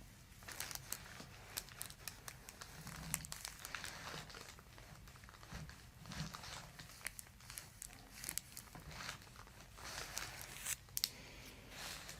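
Irregular rustling and crinkling, with many small crackles scattered through it, like paper or fabric being shifted and handled close to the microphone.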